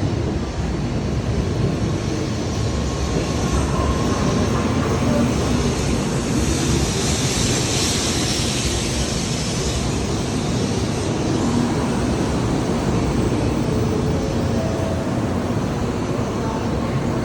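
Shinkansen train running past or alongside the platform: a steady rumble, with a rise of high hiss about seven to nine seconds in.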